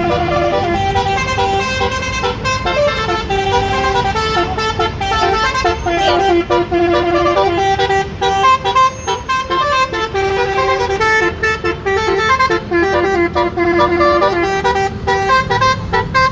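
Bus telolet horn of the basuri type, a multi-trumpet musical horn, playing a tune of held notes that step up and down in pitch in quick succession. A low rumble runs underneath.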